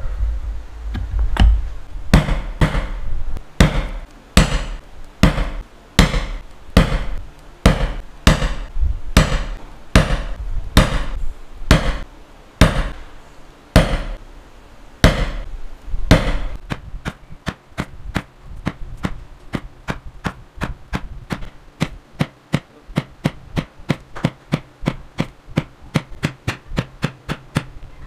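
Poly mallet striking a leather punch through a paper pattern into leather on a cutting mat: firm blows about two a second, switching about halfway to quicker, lighter taps, about three or four a second.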